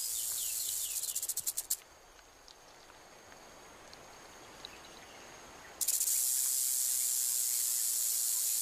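Rattlesnake shaking its tail rattle in warning: a steady, dry, high-pitched buzz that breaks into separate clicks and stops just under two seconds in, then starts again abruptly about six seconds in.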